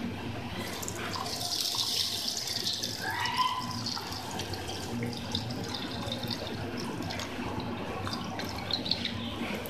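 Milk being poured from a pan into a plastic blender jar over fruit and sugar, a steady splashing pour that picks up about a second in.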